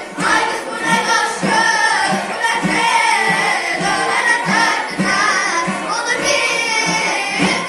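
Children's choir singing together, with several voices holding a melody, over a steady beat of hand-held frame drums at about two strokes a second.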